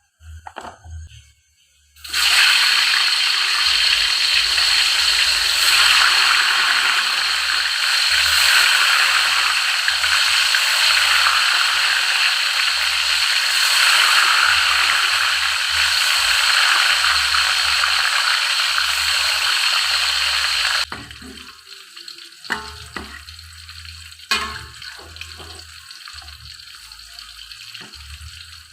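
Food frying in hot oil in a pan, with a loud sizzle that starts suddenly about two seconds in. Near the end the sizzle drops abruptly to a quieter frying, with scattered clicks and scrapes from stirring.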